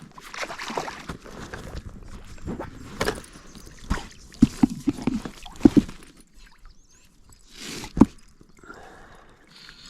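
Water splashing and a string of sharp knocks and clicks against a small fishing boat while a just-caught trout is handled on the water. The knocks cluster about four to six seconds in, with one more sharp knock about eight seconds in.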